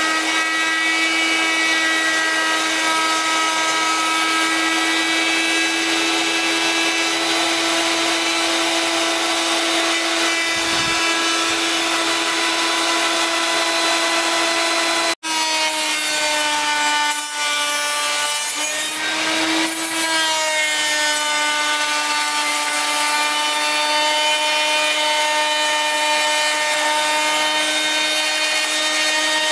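Electric router mounted upside down in a stand, running with a steady high whine while a wooden strip is fed along its fence and its edge is cut, the wood hissing against the bit. The pitch sags slightly as the cutter takes the load, and the sound breaks off for an instant about halfway through.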